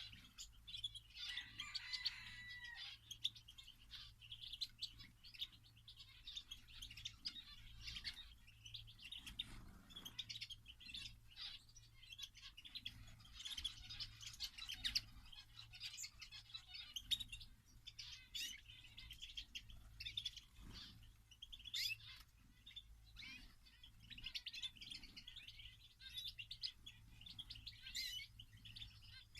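Aviary birds, canaries among them, chirping and twittering without a break, many short calls overlapping, with occasional sharp clicks.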